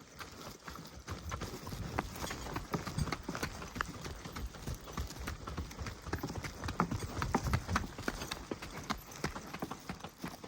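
Footfalls of walking along a track: a continuous, irregular run of short knocks.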